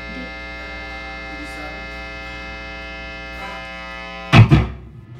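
Guitar amplifier humming and buzzing with the electric guitar plugged in but not being played: mains hum. Near the end, a short loud burst of playing with two quick peaks.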